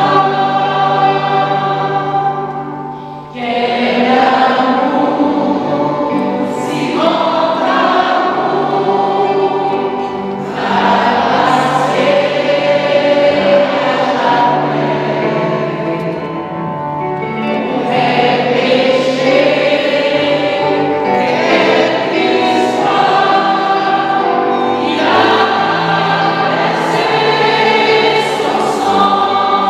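Church congregation singing a worship hymn together in long held lines, with brief breaks between phrases.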